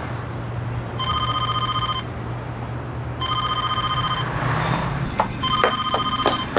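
Landline telephone ringing with an electronic trill: three rings of about a second each, starting about one, three and five and a half seconds in, over a low steady hum of street traffic. A few sharp knocks fall near the end.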